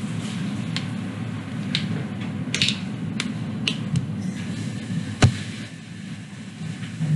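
Steady low background rumble with a handful of light clicks and taps scattered through it, one sharper knock about five seconds in.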